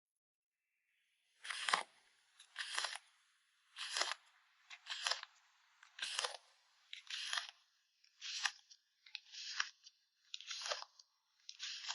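Packing materials handled in short, crisp crunchy strokes, about one a second, starting a little over a second in.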